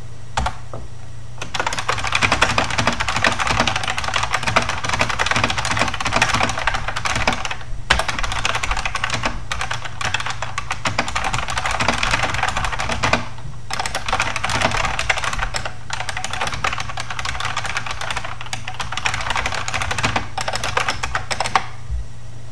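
Fast typing on a Unicomp buckling-spring mechanical keyboard: a dense, continuous clatter of keystrokes with short breaks about eight and thirteen seconds in. A steady low hum runs underneath.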